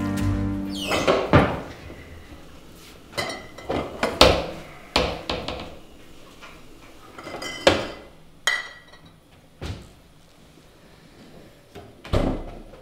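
Irregular knocks and clatters of someone rummaging through kitchen cupboards, drawers and a fridge, with cupboard doors and objects being moved, and a short ringing clink about two-thirds of the way through.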